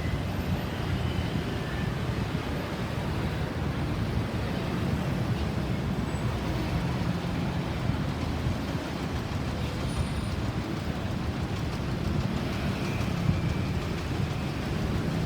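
Steady road traffic noise, a continuous low rumble with no siren sounding.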